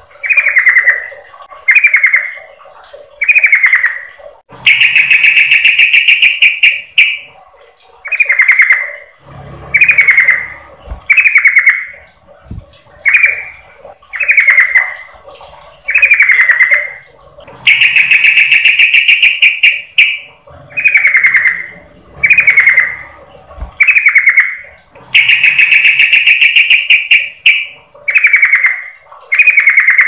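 Yellow-vented bulbul (trucukan) female calling to a male, loud: a string of short falling chirps about one a second, broken three times by a longer chattering phrase of two to three seconds.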